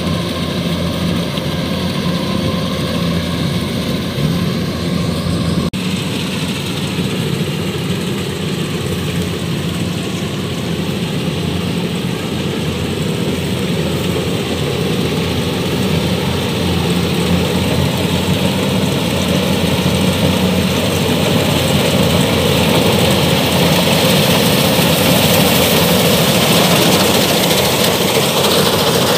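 Kubota DC-105X combine harvester's diesel engine running steadily under load while it harvests rice, a continuous drone with the rattle of its cutting and threshing gear. It grows louder and brighter near the end as the machine passes close by.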